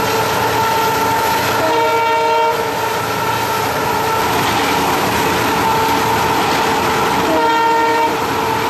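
Cab of an EMD GT46PACe (WDP4B) diesel-electric locomotive with a 16-cylinder 710 engine, running at speed with a steady whine over engine and wheel noise. The horn sounds in two short blasts, about two seconds in and again near the end.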